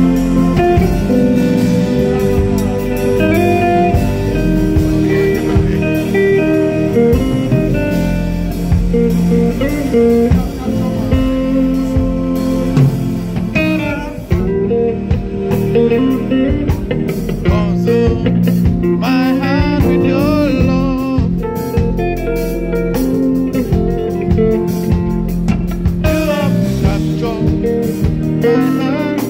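Live band playing a blues-style number led by a Telecaster-style electric guitar, with bent, wavering notes over bass and drums.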